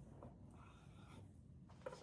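Faint scratchy sawing of a serrated bread knife cutting through a loaf, heard near silence.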